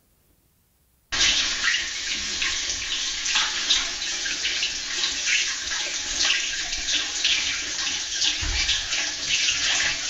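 AI-generated sound effect of tap water running into a bath, starting about a second in, with small splashes and drips through it. A low thump comes near the end.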